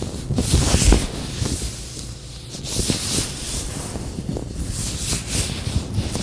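Latex gloves rubbed and handled, an irregular rustling that swells and fades, with a few small snaps.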